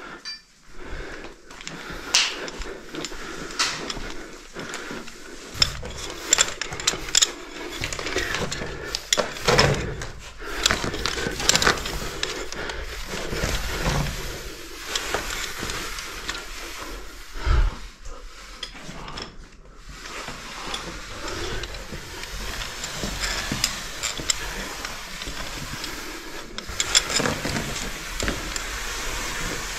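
Rappelling gear clinking and clattering while rope and boots scrape against the rock of a cave pit, with irregular sharp knocks and one heavier thump a little past halfway.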